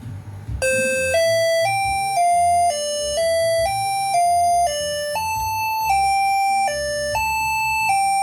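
Basuri six-trumpet telolet horn (MS1 module) playing a melody of steady, bright notes, about two a second, stepping up and down in pitch, starting a little over half a second in.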